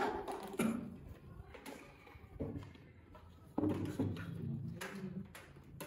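Quiet handling sounds of pens and paper as guesses are written down: scattered faint clicks and rustles, with a low murmur of voices in the second half.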